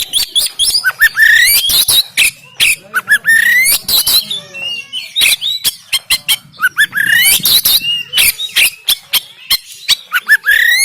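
Oriental magpie-robin (kacer) singing hard: quick phrases of sharp rising whistles mixed with rough, clicking notes, one phrase after another.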